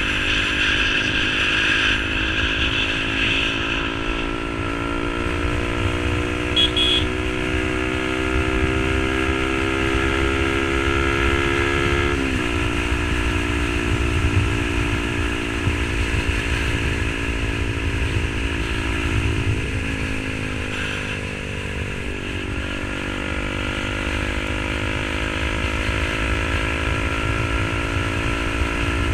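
Yamaha R15 V3's single-cylinder engine running through an SC Project aftermarket exhaust while riding, its note rising slowly, then dropping sharply about twelve seconds in and dipping again around twenty seconds before rising slowly once more. A low rumble of wind and road noise runs underneath.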